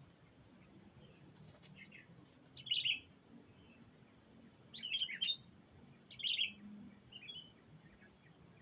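Bulbul (kutilang) calling in three short bursts of quick, bubbly chirps, with a few fainter chirps before and after.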